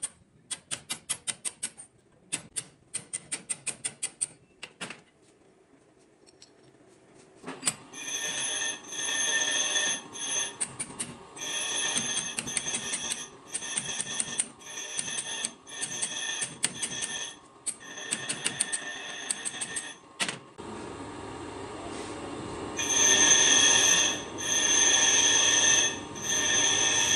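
Quick runs of light hammer taps on a steel chisel cutting the old lining off a motorcycle drum-brake shoe held in a vise. After a short pause come repeated metal-on-metal strokes about a second long, each carrying a high ringing squeal. They grow louder and longer near the end.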